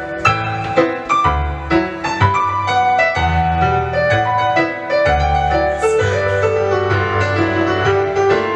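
Solo piano music for movement, its notes struck in a steady rhythm over a bass line.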